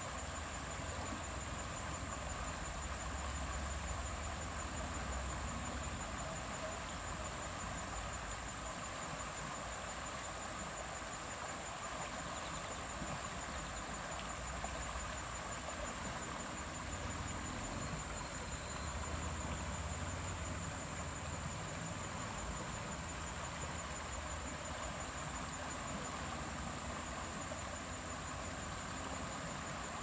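Fast-flowing river running over shallow riffles: a constant, even rushing of water, with a thin, steady high-pitched whine above it.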